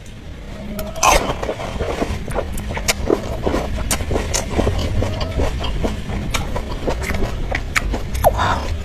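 Close-miked eating sounds: crisp crunching and chewing with many sharp crackles, the loudest crunch about a second in.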